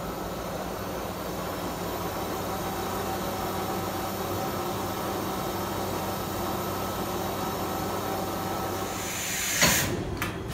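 Mazak VCN 700D vertical machining center running: a steady mechanical hum and whine with a hiss as its axes move. Near the end the automatic tool changer swaps a tool, with a loud clunk, a burst of air hiss and a couple of sharp clacks.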